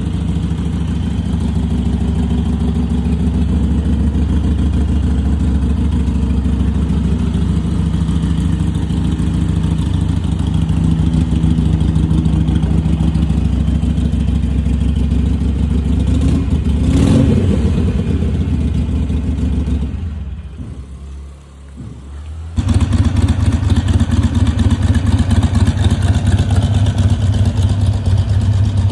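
Harley-Davidson Iron 883's air-cooled 883 cc V-twin running at idle, blipped once about halfway through, its pitch rising and falling back. After a brief fade, it runs on louder with an even, pulsing beat.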